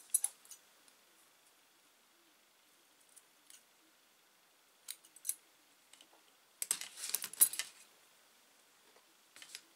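Small metal scissors snipping through a flat elastic band, a few sharp separate snips. About seven seconds in comes a louder cluster of clicks and clatter, the loudest moment, as the scissors are handled and laid down on the table.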